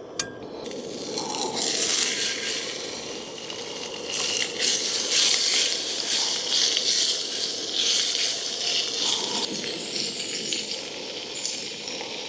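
Raw pork frying in a hot, oiled carbon steel pan: a steady sizzle full of fine crackles that builds up over the first couple of seconds as the meat goes in.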